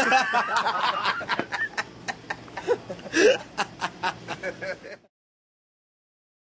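A man laughing in short, breathy snickers, then dead silence from about five seconds in.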